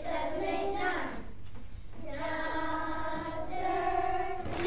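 A children's choir singing together, with long held notes in the second half.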